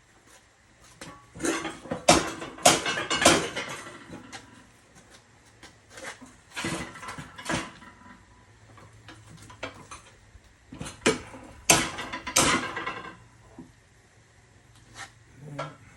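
Metal clanking and scraping from a manual tire changer's tool being worked against a steel tractor wheel rim, in three bursts of sharp knocks.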